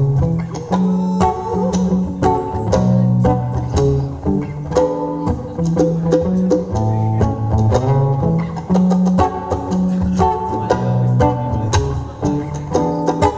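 Instrumental one-drop reggae played live on acoustic guitar, djembe and keyboard over a repeating bass line, with a steady beat of drum strokes.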